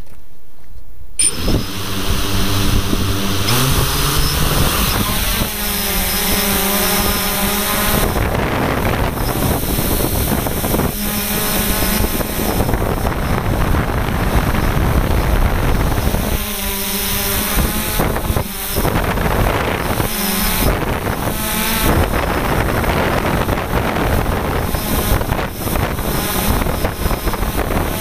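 DJI F550 hexacopter's brushless motors and propellers spinning up sharply about a second in, with a rising whine as it lifts off, then a steady multi-tone drone whose pitch shifts up and down as it flies, heard up close on board.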